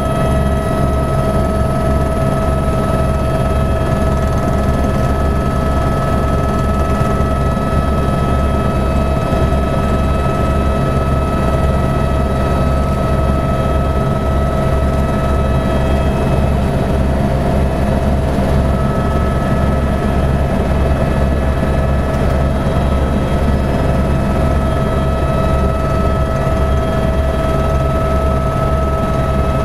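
Helicopter noise heard from inside the cabin: a steady turbine whine of two high tones over a dense low rotor rumble, as the helicopter climbs after takeoff.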